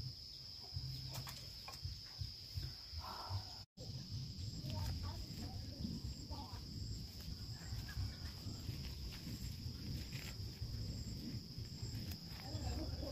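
Steady high insect trill of crickets, over a low rumble on the microphone; the sound cuts out for an instant about four seconds in.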